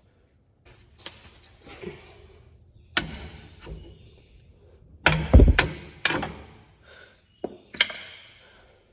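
Metal knocks and clanks from fitting the cross pin into a GM 10-bolt differential carrier: several separate impacts, the heaviest thump about five seconds in.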